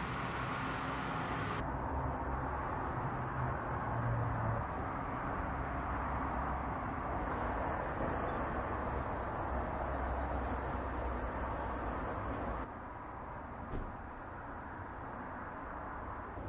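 Steady outdoor background noise of distant road traffic, a low rumbling hum, that changes abruptly twice.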